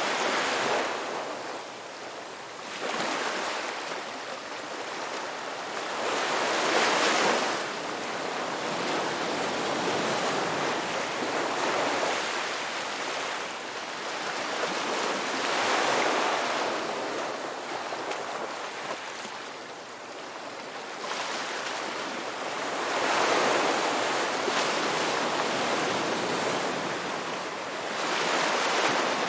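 Ocean waves breaking and washing up a beach, the surf swelling and fading every few seconds, about five times.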